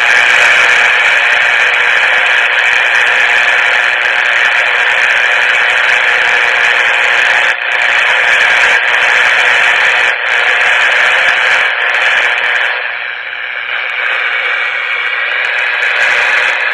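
1962 Emerson 707 transistor radio hissing loudly with static from its small speaker, picking up no station. It cuts out briefly three times, typical of the power leads slipping on its battery terminals.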